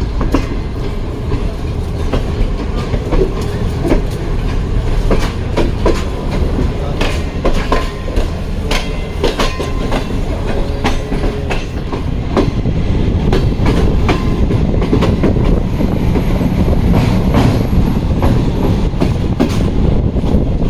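Tezgam Express passenger train running on the line: a steady rumble of wheels on track, with sharp clacks from the wheels striking rail joints. About halfway through, the rumble gets louder and fuller.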